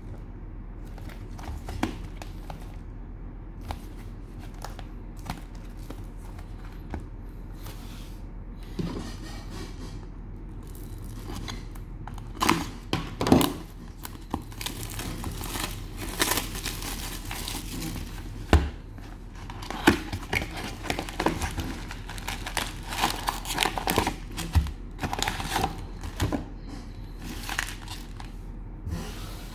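Cellophane wrapper of a trading-card cello pack crinkling and tearing as it is handled and opened. Sparse light handling noises at first, then denser crinkling and tearing from about halfway, over a steady low hum.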